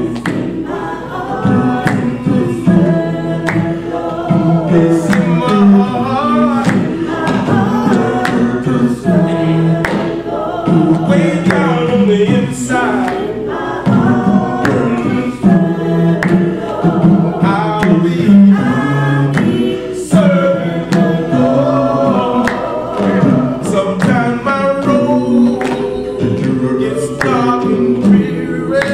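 Gospel vocal group of men and women singing a cappella in harmony, one lead voice over the others.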